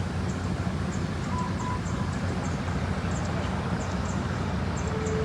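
An engine running steadily, a continuous low rumble, with faint high ticks scattered through it.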